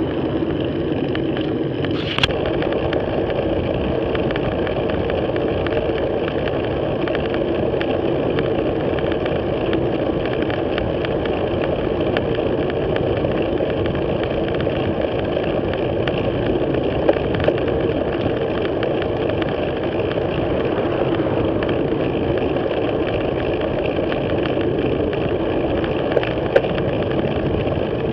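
Steady wind rush and road rumble picked up by an action camera on a road bike's handlebars while riding, with a few sharp clicks along the way.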